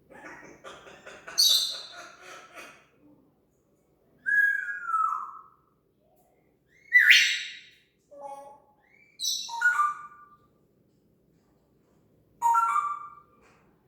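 An African grey parrot whistling and imitating sound effects: a run of separate short calls with gaps between them. One whistle falls in pitch about four seconds in, and another sweeps sharply upward about seven seconds in.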